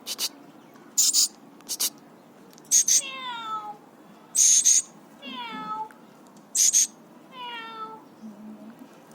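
Alexandrine parakeet calling: about six short, harsh, hissy bursts, and after the later ones three drawn-out, mewing calls that slide down in pitch.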